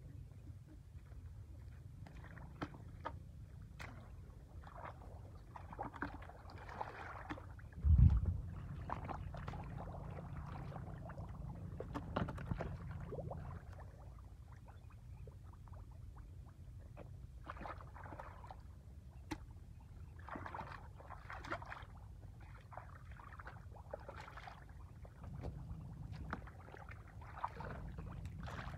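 Hands splashing, sloshing and groping in shallow muddy water and wet mud while catching fish by hand, in irregular clusters, over a low steady rumble. A single heavy thump about eight seconds in is the loudest sound.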